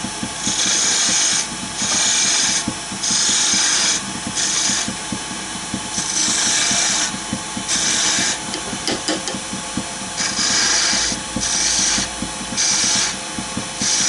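A wood lathe running steadily while a gouge cuts into the spinning wooden spindle in about ten short passes, each a hiss of shavings lasting up to a second. These are light cuts, hollowing a concave curve.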